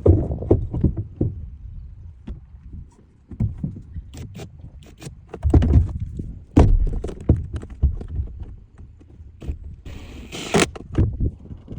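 Irregular clicks, knocks and rattles of plastic parts and hand tools as the blower motor housing is refitted under the dashboard, with a short rasping burst about ten seconds in.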